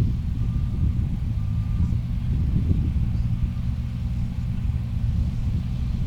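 Ford Focus WRC rally car engine running steadily at low revs with a low rumble. A short electronic beep repeats about once a second during the first two seconds.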